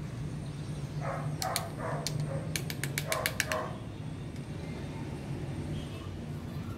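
A dog barking in short bursts: about four quick barks starting a second in and two or three more around three seconds in, over a steady low hum. A fast run of sharp clicks falls between the two groups.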